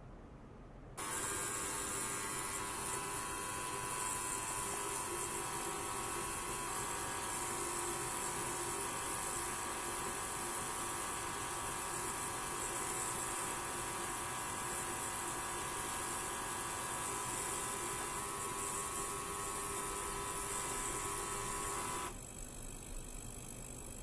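Benchtop ultrasonic cleaner running, a steady buzzing hiss with several steady tones. It switches on suddenly about a second in and cuts off near the end.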